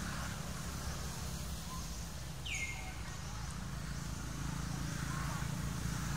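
A single falling, whistled bird call about two and a half seconds in, over a steady low rumble.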